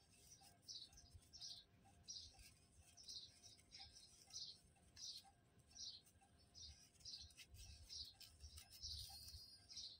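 Faint, repeated high bird chirps, about two a second, with soft low bumps here and there.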